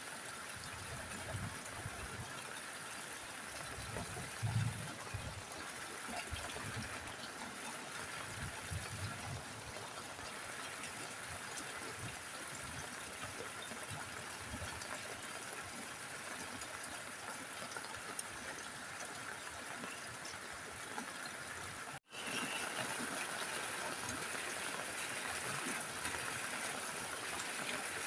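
Steady rain falling on a roof: an even hiss with irregular low drips and thuds, stronger in the first half. The sound cuts out for an instant about three-quarters of the way through and returns slightly louder.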